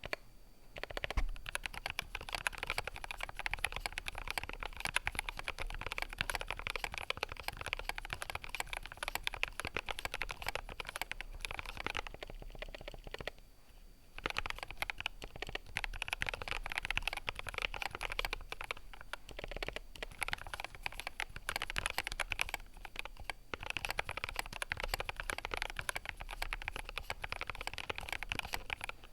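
Continuous fast typing on a GMMK Pro mechanical keyboard with Durock Gold V2 stabilizers: a dense run of key clacks, pausing briefly about twelve seconds in and again near two-thirds through.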